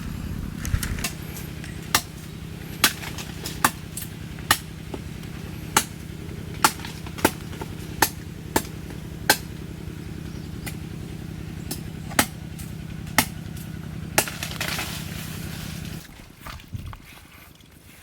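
Sharp knocks or taps, roughly one every half second to second, over a steady low hum that stops near the end.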